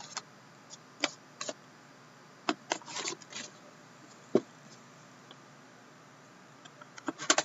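Trading cards being handled: scattered soft clicks and rustles of card stock, with a sharper tap a little past halfway and a quick run of rustles near the end.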